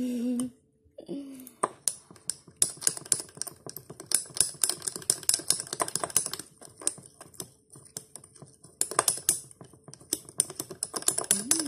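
Ice cubes clinking and rattling against a tall glass as an iced coffee frappé is stirred briskly, many quick irregular clicks in a steady run.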